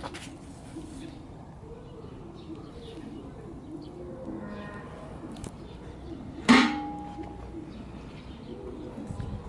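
Low cooing bird calls, like pigeons or doves, go on in the background. About six and a half seconds in there is a single sharp clank that rings briefly.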